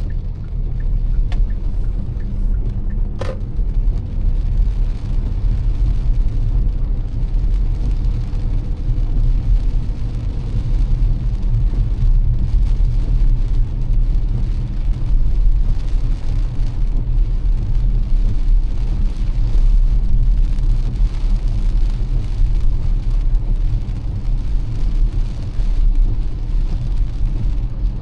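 Car driving on wet streets in heavy rain: a steady low road-and-engine rumble under an even hiss of rain and tyre spray. A short sharp click about three seconds in.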